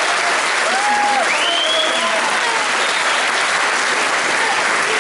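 Audience applauding steadily, with a shrill rising whistle from the crowd about a second and a half in.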